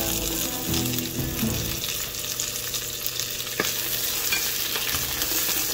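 Garlic cloves and ginger sizzling and crackling in hot olive oil in a frying pan, stirred with a wooden spatula.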